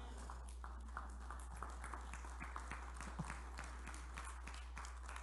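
Faint, scattered clapping from a few people in a church congregation: irregular sharp claps, a few a second, over a steady low electrical hum.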